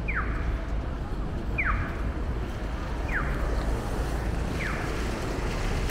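A short electronic chirp that falls in pitch, repeating evenly about every second and a half, four times, over steady rumbling street noise.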